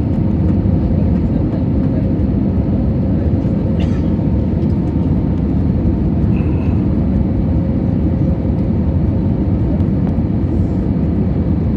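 Steady low roar of a Boeing 737 airliner's jet engines, holding an even level throughout.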